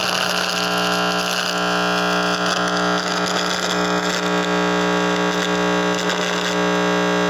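RF receiver's speaker putting out a loud, steady buzzing hum over hiss, switching on abruptly and cutting off suddenly near the end.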